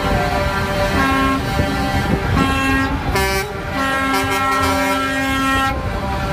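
Truck air horns of passing concrete mixer trucks honking in long, overlapping blasts at several different pitches, with a strong new blast about three seconds in, over a low diesel rumble.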